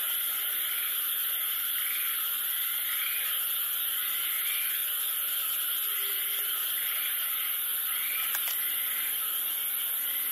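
Night insects chirping in woodland: a steady high buzz with a short chirp repeating about every three-quarters of a second.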